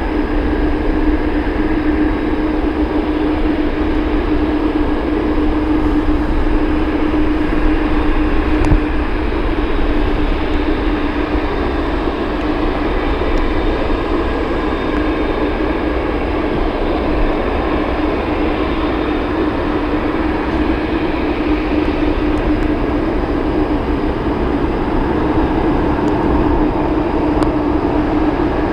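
Jet airliner engines running loudly and steadily, a continuous roar with a low hum that holds its pitch throughout.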